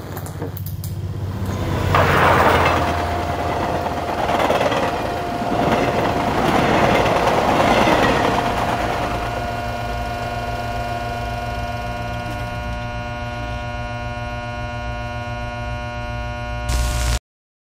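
Swelling rushing noise with a steady tone running through it, settling into a steady, many-toned electronic drone; it ends with a short burst of static and cuts off abruptly.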